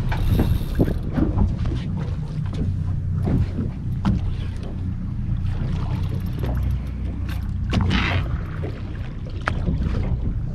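A boat at sea, with a steady low rumble, wind on the microphone and water washing against the hull. Scattered short knocks and a brief splashy wash come about eight seconds in.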